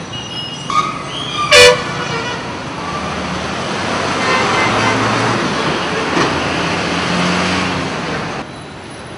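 Road traffic running steadily, with vehicle air horns blasting: a short honk under a second in, then a very loud, brief blast about a second and a half in. A vehicle passes in the middle, and the traffic noise drops suddenly near the end.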